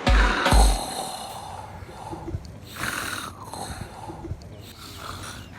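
A man snoring: several long, noisy snoring breaths one after another, opening with two deep bass thumps from the remix's beat.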